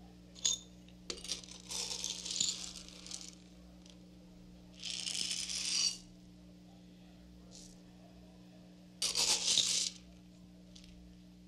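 Dried beans rattling as a hand scoops them from a canister and pours them out onto a tabletop, in four bursts of clatter. A low steady hum runs underneath.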